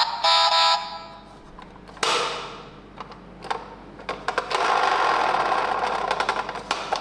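Toy ambulance minicar rattling as it rolls, a rapid mechanical whir with scattered clicks. A brief electronic tone sounds near the start, and a sudden rush of noise comes about two seconds in.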